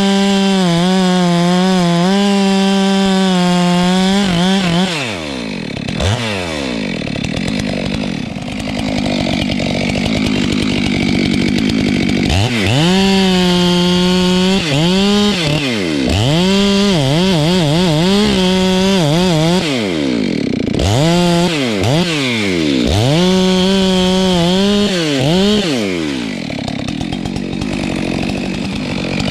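Stihl MS 462 two-stroke chainsaw running at full throttle, its pitch wavering as it cuts into wood. It drops back toward idle about five seconds in, again around twenty seconds and near the end, and revs up again in between.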